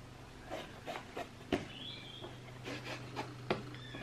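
Hands handling a trainer and its wrapping paper: light rustling and rubbing with a few soft clicks and taps, over a low steady hum.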